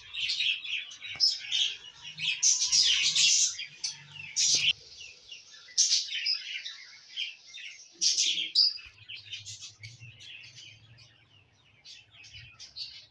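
A flock of budgerigars chirping and chattering in an aviary, a dense stream of quick, high twittering calls that thins out in the last few seconds.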